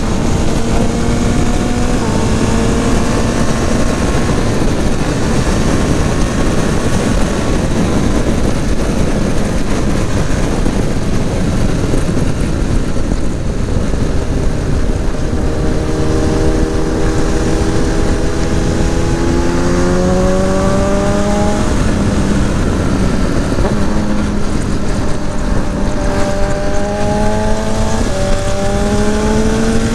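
BMW motorcycle engine running at highway speed under heavy wind rush on the microphone. Its pitch climbs twice, about halfway through and again near the end, each time dropping back abruptly as the rider shifts up a gear.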